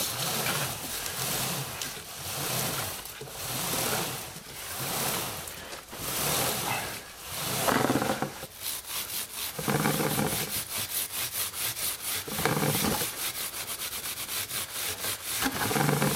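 Stiff chain brush scrubbing the bottom run of a kerosene-soaked Honda Africa Twin motorcycle drive chain in back-and-forth strokes. The strokes are slow and long at first, then quick and short, several a second, from about halfway through.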